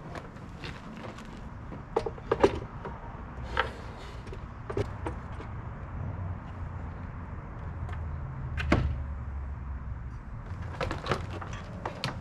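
Clunks, knocks and taps of a battery box and its cables being handled and pushed into a minivan's cargo area, scattered irregularly with a louder knock about two and a half seconds in and another near nine seconds, over a steady low rumble.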